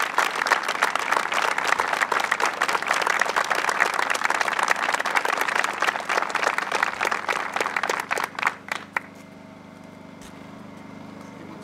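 Audience applauding, the clapping thinning to a few last claps and stopping about nine seconds in. A low steady hum is left behind it.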